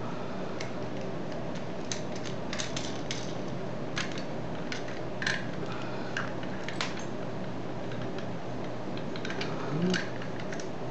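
Light, irregular metallic clicks and ticks of a lock pick and tension wrench working the spool-pinned pin stack of an American Lock 5260 padlock, some in quick little clusters, over a steady background hum.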